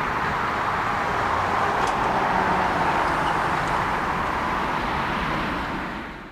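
Boeing 767-300ER jet engines at takeoff thrust as the airliner climbs away, a steady rushing jet noise that fades out near the end.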